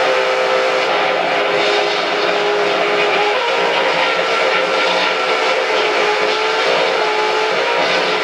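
Noise rock played loud: an unbroken wall of distorted electric guitar noise with sustained droning tones that slide slightly in pitch.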